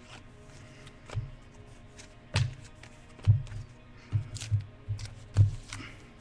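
Trading cards being handled and set down on a tabletop: a series of about seven soft taps and thuds, irregularly spaced.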